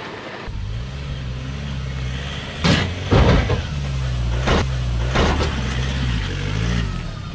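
Ford Ranger pickup's engine running at low, steady revs as it crawls over a rock step, with a slight rise in revs near the end. Several sharp knocks and scrapes come between about three and five seconds in, the loudest near three seconds.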